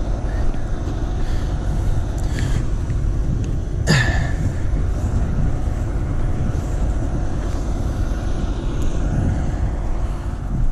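Wind buffeting the microphone of an action camera, a steady, uneven low rumble, with a single sharp knock about four seconds in.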